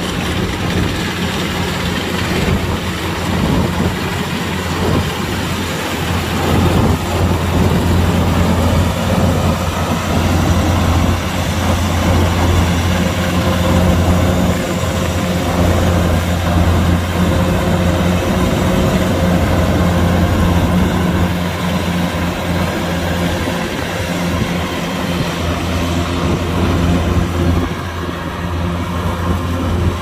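Kubota DC-105X combine harvester's diesel engine running steadily, a deep even hum under a broad mechanical rush of machinery noise.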